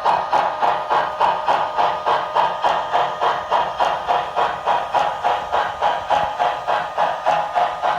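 Digital steam-locomotive sound from an HO scale model's LokSound 5 decoder through its onboard speaker: a steady run of exhaust chuffs, about three to four a second, with a hiss.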